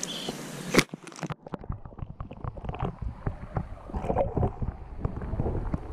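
A splash about a second in, then river water heard from under the surface: muffled bubbling and sloshing with many small clicks and knocks as a released fish is let go from a hand.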